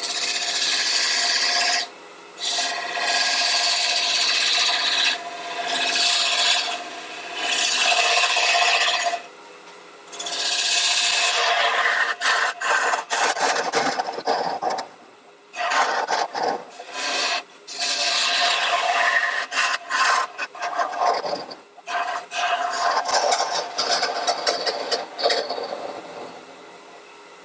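A woodturning tool cutting the face of a spinning wooden platter on a lathe: a loud hissing scrape in repeated passes of a few seconds each, with short breaks as the tool is lifted off, tapering away near the end. This is the centre of the piece being turned out and tidied up.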